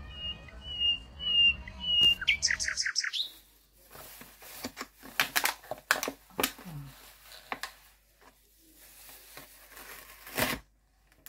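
A small bird chirping: a short high note four times, then a quick trill, over a low rumble. About three seconds in this gives way to crisp crinkling and crackling of the plastic film on a tray of minced beef being handled and peeled open, with the loudest crackle near the end.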